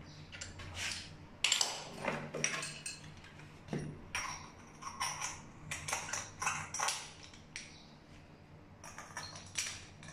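Brass shower-mixer connectors and chrome cover flanges being worked with a wrench and by hand: irregular metallic clicks, taps and scrapes, a few at a time.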